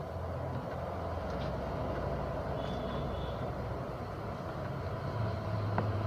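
A steady low hum and rumble with a few light clicks.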